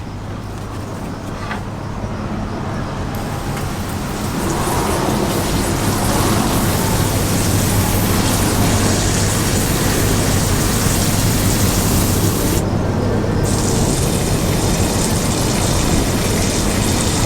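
Small water pump running and spraying a steady stream of water into a coconut coir planter, over a low steady hum. The spray builds up over the first few seconds, cuts out briefly near the end, then starts again.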